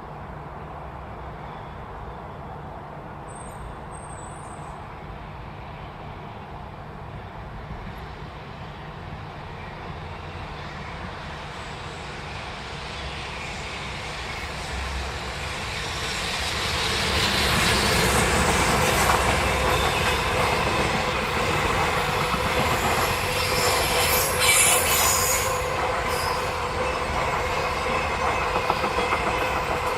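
A train approaching on the line, its rumble growing steadily louder over the first half and then running loud and close. Steel wheels squeal briefly on the rails a little after the middle.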